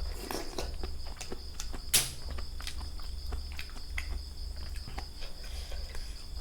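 Steady high chirring of crickets, with scattered small clicks and knocks and one sharper knock about two seconds in.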